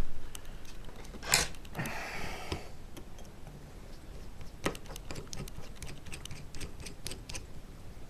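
Small metal clicks and taps of tiny screws, a screwdriver and gimbal parts being handled while screws are started by hand into a brushless gimbal motor mount. A sharper clack comes about a second in, followed by a short scratchy rustle.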